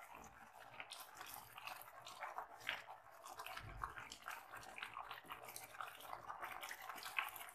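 Thick tomato sauce simmering and spluttering in a non-stick frying pan while a silicone spatula stirs it: a faint, dense crackle of small pops and wet scrapes.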